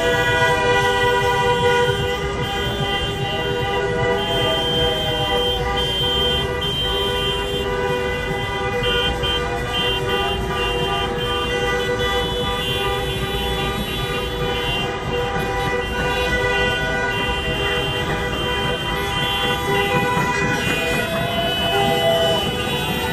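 Many car horns honking together without a break, horns held down in a victory celebration, over the low rumble of traffic.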